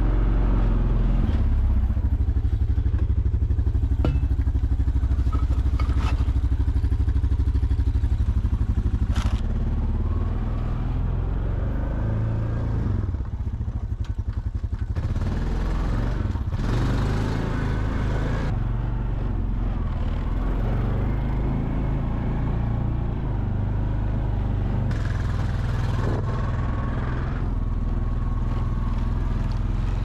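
ATV (four-wheeler) engine running while the machine is ridden along a snowy trail, a steady low drone whose note shifts a few times, with a few light clicks.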